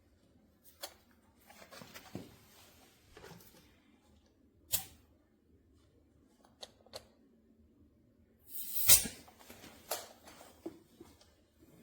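Scattered handling noises: light clicks and rustles from equipment being handled. A louder sharp knock comes about nine seconds in.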